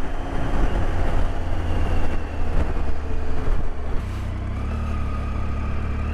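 Motorcycle running at road speed, with heavy wind buffeting on the rider's microphone. About four seconds in, the buffeting settles into a steadier low drone with a faint whine.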